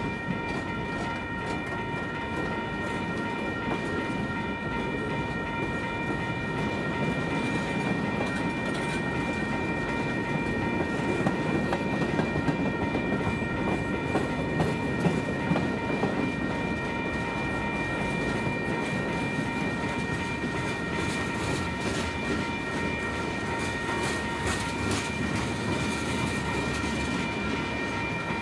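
Freight cars rolling past at trackside: a steady rumble of steel wheels on rail with clicks from the wheels, louder about halfway through, and a steady high-pitched whine over it.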